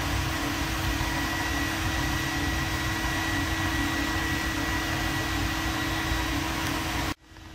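Homemade drip-fed waste-oil furnace running hot: a steady rushing noise with a high whine and a low hum, cut off abruptly near the end.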